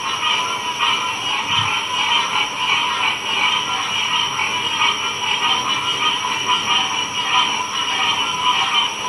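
Dense chorus of many frogs calling at once, a loud, steady, pulsing din of overlapping calls.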